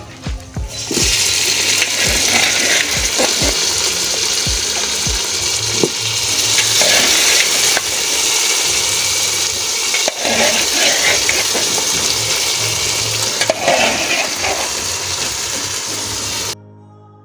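Beef and onions sizzling loudly in a hot saucepan, with soft background music underneath. The sizzle starts about a second in and cuts off suddenly near the end, leaving only the music.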